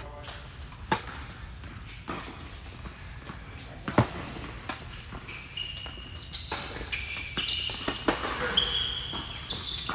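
Tennis balls struck by rackets in a doubles rally on an indoor court: sharp pops with hall echo, the loudest about four seconds in. In the second half, short high squeaks of players' shoes on the court.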